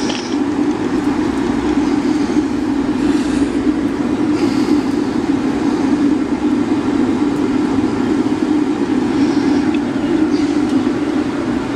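Air blower running with a steady hum, forcing air into a homemade waste-oil burner so that the newspaper starter fire inside flares with a steady rushing noise. No oil is being fed to it yet.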